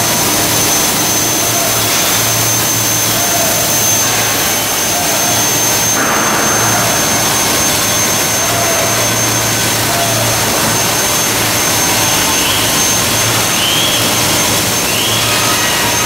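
Okuma MCV-AII double-column CNC gantry mill running as its table travels under the gantry: a loud, steady rush of machine noise with a thin high whine. A few short rising chirps come near the end.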